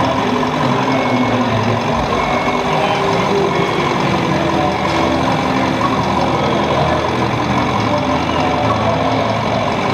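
Steady simulated diesel truck engine idling, played by the sound module of a radio-controlled model timber truck.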